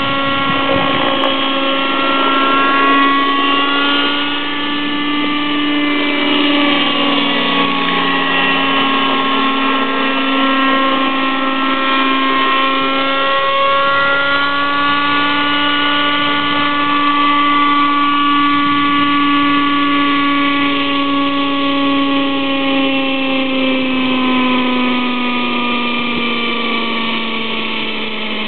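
Thunder Tiger Raptor 60 nitro RC helicopter running: its two-stroke glow engine and rotors give a steady high buzzing whine. The pitch dips and comes back up a few seconds in, then sags slowly near the end.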